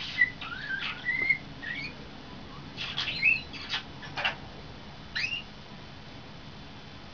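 Pet starling whistling and chattering: short whistles and upward-gliding whistled notes mixed with clicks and raspy calls. They come in bursts through the first two seconds and again around three to four seconds in, with a last rising note just after five seconds.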